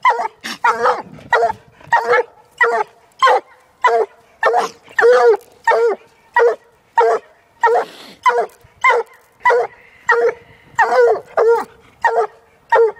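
One-year-old Walker hound barking at a caged raccoon: a steady run of short, evenly spaced barks, about one and a half to two a second.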